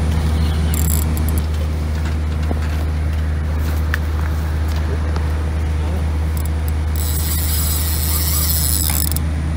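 Steady low rumble throughout, with a high hissing buzz for about two seconds near the end.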